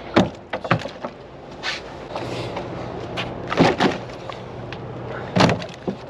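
Rockfish being tossed into a big plastic tote: about half a dozen dull thuds at uneven intervals as the fish land on the plastic and on the fish already in it.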